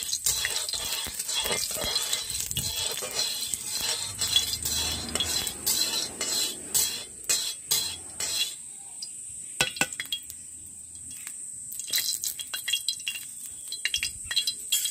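Metal utensil clinking and scraping against a kadai while cooking oil heats in it, with a steady high hiss. The clinks thin out for a few seconds past the middle, then pick up again.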